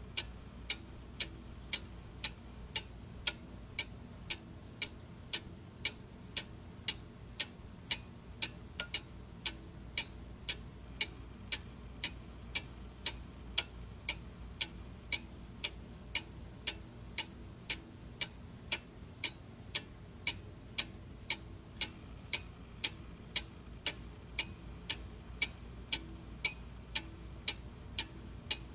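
Clock ticking at a steady, even pace, somewhat faster than one tick a second, with a faint low hum underneath.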